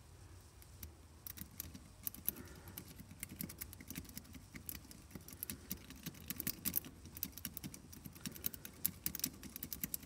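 Rapid, irregular light metallic clicking of a city rake pick scrubbed in and out of a Master Lock M15 padlock's keyway under tension, the pick ticking over the pin stack.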